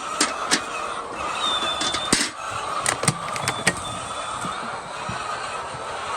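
Steady mechanical noise with a string of sharp clicks and knocks in the first few seconds, and a few faint, high, thin peeps over it.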